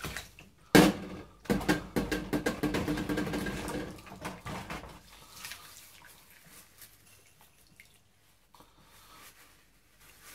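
Crockery being washed up by hand in a kitchen sink: a sharp knock about a second in, then a busy stretch of dishes clinking and knocking with water splashing, thinning to occasional quiet clinks for the second half.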